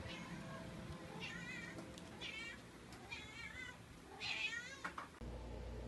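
Domestic cat meowing four times, each meow wavering in pitch. These are greeting meows, which the owner can't tell apart as "I missed you" or "I want food".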